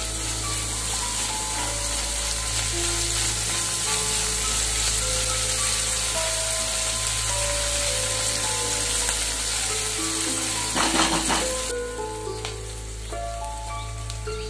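Diced onion, carrot and green capsicum sizzling in oil in a nonstick wok while they are stirred with a spatula over low heat. The sizzle stays steady, then drops away near the end.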